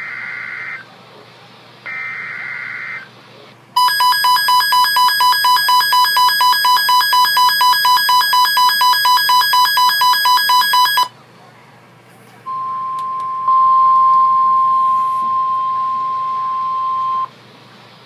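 NOAA weather radio receiving an Emergency Alert System warning: the last two short warbling data bursts of the SAME header, then the radio's own loud rapid beeping alarm, about five beeps a second for some seven seconds. After a short pause the steady 1050 Hz warning alarm tone plays, stepping up in loudness about a second in.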